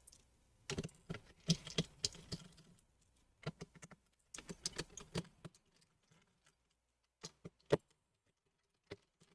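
Light clicks and taps of fingers handling cables, connectors and small parts on an open laptop's motherboard and chassis: clusters of quick clicks in the first half, then a few single clicks spaced apart.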